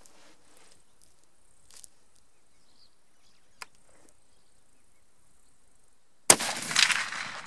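A single shot from a 7x57 mm Mauser rifle: one sudden loud crack about six seconds in, trailing off over about a second. It is a sighting-in shot to zero the rifle's open sights.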